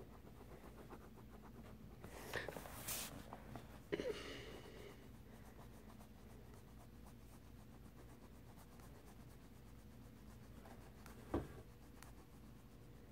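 Coloured pencil scribbling on paper in rapid faint strokes, with brief louder noises about two and four seconds in and a single knock near the end.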